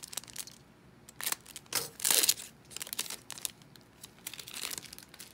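A foil trading-card pack wrapper being crinkled and torn open, in irregular crackles and rustles, loudest in a stretch about two seconds in.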